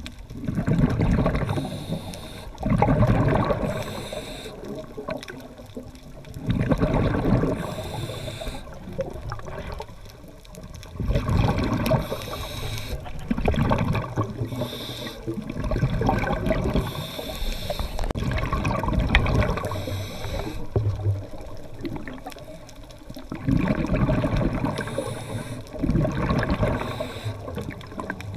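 Scuba diver breathing through a regulator underwater: a burst of rushing, gurgling exhaled bubbles every two to four seconds, with a fainter hiss of inhaled air between them.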